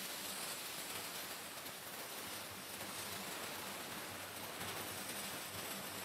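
Pressure washer jet spraying onto an exposed-aggregate concrete driveway, blasting off dirt with a steady hiss.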